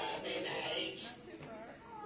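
Indistinct talking with faint music, louder in the first second and quieter after.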